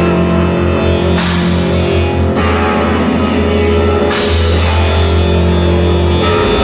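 A live rock band playing: electric guitar, keyboard and bass over a drum kit, with steady low bass notes and two cymbal crashes, about a second in and again about four seconds in.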